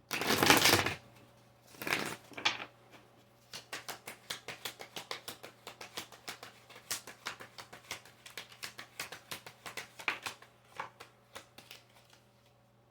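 A deck of tarot cards being shuffled: a loud riffling burst in the first second, two shorter ones around two seconds in, then a long run of quick card clicks and slaps, several a second, dying away near the end.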